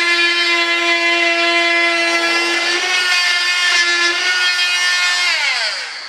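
Handheld electric cutter running with a steady high whine while trimming the edge of a laid-up mold, its pitch wavering slightly under the cut. It is switched off about five seconds in and whines down as it spins to a stop.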